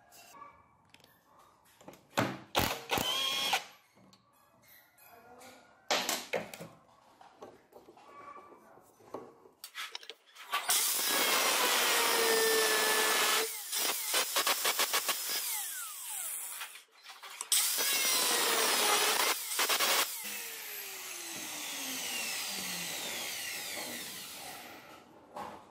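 Angle grinder cutting into the metal of a gearbox bell housing, running loud for a few seconds, stuttering on and off, running again, then switched off and winding down with a falling whine. A few short knocks of handling come earlier.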